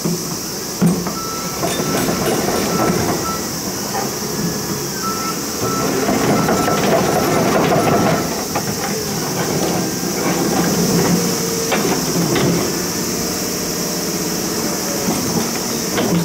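Komatsu HB365 hybrid hydraulic excavator working: engine and hydraulics running with a steady high hiss and scattered metallic clanks. A warning alarm beeps repeatedly, about twice a second, through the first six seconds.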